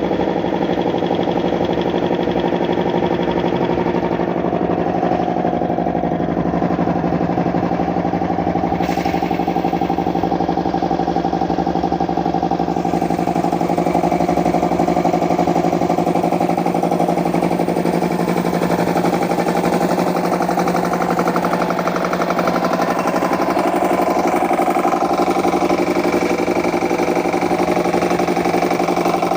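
Brand-new Puma 30/90 piston air compressor running steadily on test, its pump making a fast, even knocking rhythm over the motor's hum.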